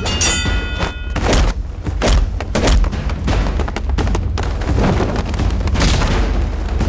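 Fight-scene sound effects: a rapid run of hits and thuds from pole blows and bodies falling, over dramatic background music.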